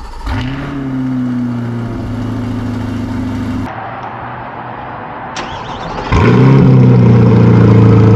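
Two starts of a C8 Corvette Stingray's 6.2-litre LT2 V8. First, a cold start on the factory Z51 quad-tip exhaust: the engine catches, flares up and settles into a steady high idle. Then, after a cut a little under halfway through, a start on a custom center-exit exhaust that flares up and idles much louder.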